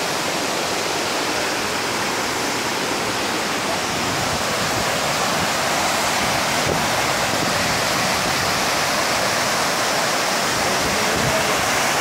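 Tortum Waterfall's wide curtains of water crashing into the pool below, with shallow rapids running over the rocks nearby: a steady, unbroken rush of water.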